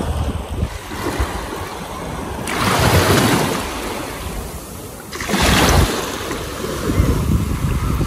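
Small waves washing up onto a sandy beach, with two louder surges of surf hiss, about two and a half and five and a half seconds in.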